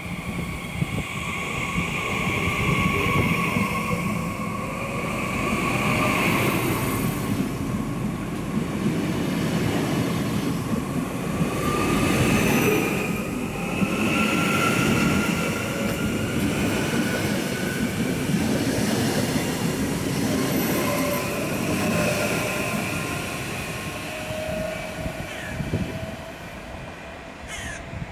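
A Twindexx double-deck electric multiple unit runs past along the platform. High whining tones slowly shift in pitch over the rumble of its wheels on the rails.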